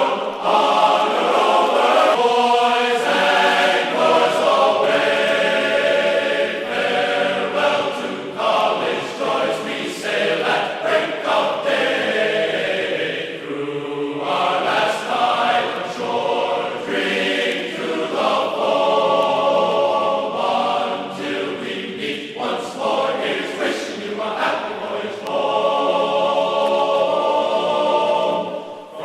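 Background music with sustained choir-like singing.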